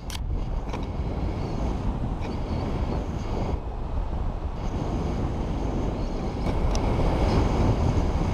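Wind rushing over the microphone as a paraglider glides with its paramotor engine stopped; it grows louder about six and a half seconds in.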